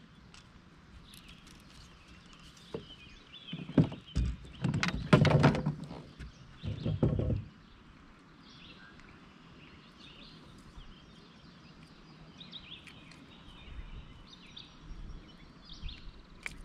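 Small birds chirping faintly throughout. About four to seven seconds in come three loud noisy bursts, such as water splashes, rustling or handling noise.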